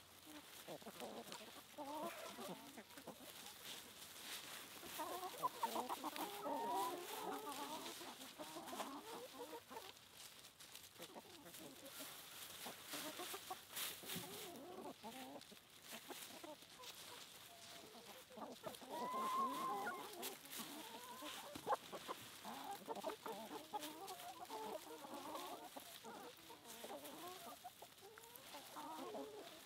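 A flock of backyard chickens clucking and cackling in bursts, with a few sharp knocks now and then.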